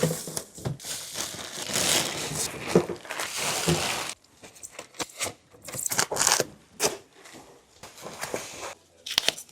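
Crinkling and tearing of packaging wrap being handled. A dense stretch stops suddenly about four seconds in, followed by several short bursts.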